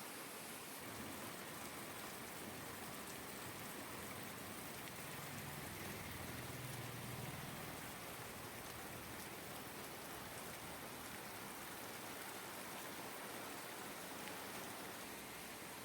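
Steady rain falling, a soft even hiss, with a faint low hum for a few seconds in the middle.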